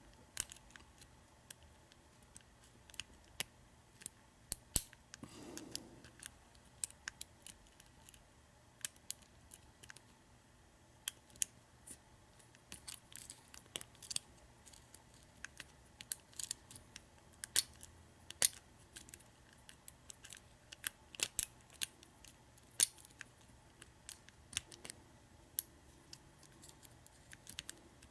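Lock pick and tension wrench working the pin stack of a Master Lock Pro Series 6327 padlock: small, sharp metallic clicks and ticks at irregular intervals as the pins are lifted and set.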